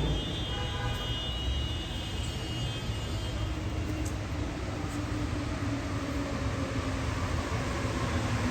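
Rubber-tyred metro train on a wet elevated track: a steady rumble with a high whine that fades over the first few seconds, then a lower motor hum that comes back about halfway through and slowly drops in pitch.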